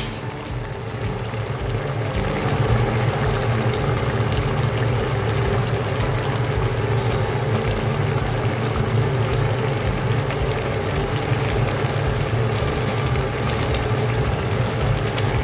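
Pot of bottle gourd (upo) and chicken simmering in its broth: steady bubbling and hiss over a constant low hum.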